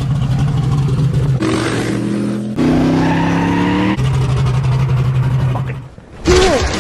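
Race car engines running at high, steady revs in a string of abruptly cut-together clips, the pitch jumping at each cut about every second or so. Near the end the sound drops out briefly, then a short falling whine is heard.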